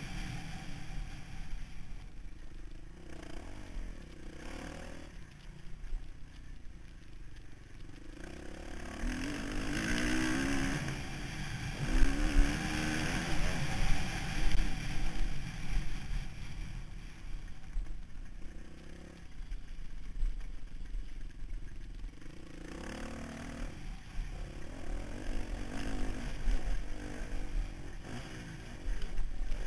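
Motocross bike engine revving up and down as the rider accelerates and backs off around a dirt track, heard from an on-board GoPro, with frequent low buffeting thuds. It is loudest around the middle.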